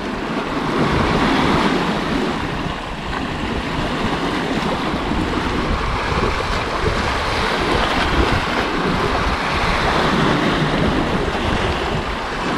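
Sea waves washing against a rocky shore, with wind buffeting the microphone: an even, unbroken wash of noise.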